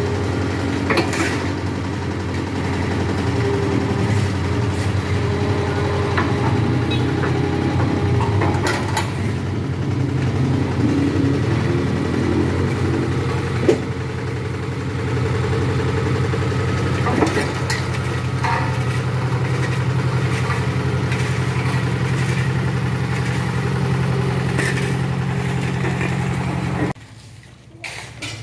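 Diesel engine of a tandem double-drum road roller running steadily as the roller is driven down ramps off a truck, with a couple of sharp metallic knocks from the steel drums and ramps. The engine sound cuts off suddenly near the end.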